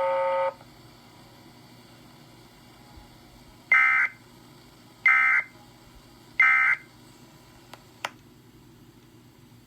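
A steady tone cuts off about half a second in, then the Emergency Alert System's end-of-message code: three short warbling data bursts, evenly spaced about a second and a half apart, marking the end of the alert.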